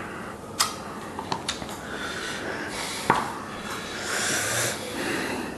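A person sniffing and breathing hard through the nose, from the burn of hot chillies, with a few light clicks of a spoon and a plastic ice-cream tub set down on the table.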